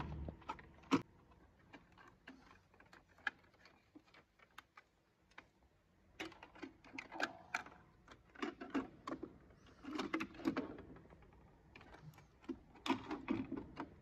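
Faint clicks, taps and handling noise of plastic parts: the LG washer's control-panel circuit board being unlatched from its clip-in plastic housing. Sparse at first, busier from about halfway through.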